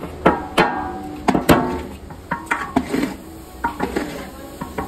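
Metal utensils clanking against a large metal cooking pan: irregular sharp knocks, several of them ringing briefly, over a low steady hum.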